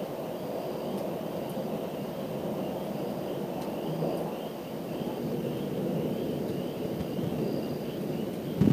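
Distant thunder rolling as a steady low rumble, with a faint high pulsing chirp in the background. A sudden louder burst comes right at the end.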